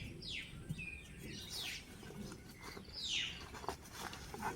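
A bird calling: short notes that fall steeply in pitch, three in a row about one and a half seconds apart.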